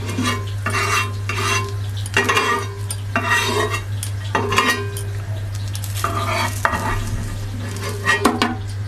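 Spatula scraping and tapping on a nonstick griddle pan in about seven short strokes while a patisapta crepe fries with a light sizzle, over a steady low hum.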